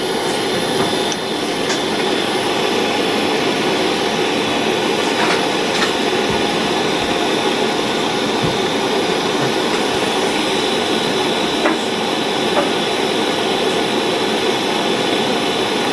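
Small soldering torch flame hissing steadily while held on an eyeglass frame's bridge to melt silver solder into the joint.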